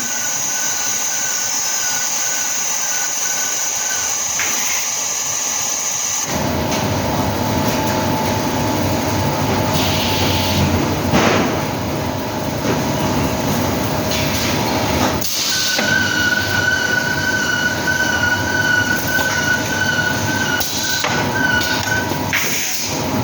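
Plastic moulding machine for making balls and piggy banks running: a steady whine over a hissing mechanical noise. The sound changes abruptly twice, about a quarter of the way in and again past the halfway mark.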